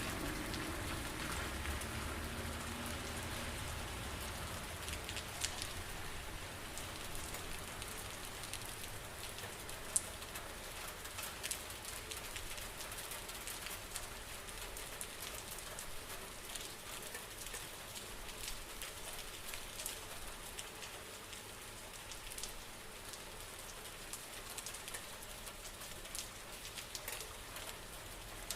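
Steady rain falling, with many sharp individual drops ticking through it. It eases slightly, growing a little quieter as it goes.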